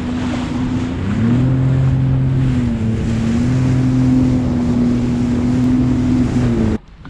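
Jet ski engine running under way over choppy water, with the rush of spray and wind on the microphone. The engine note holds steady, dips briefly about three seconds in, and cuts off suddenly near the end.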